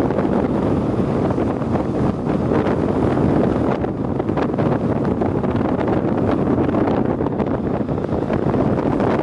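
Strong onshore wind buffeting the camera microphone: a loud, continuous rushing noise that flutters with the gusts.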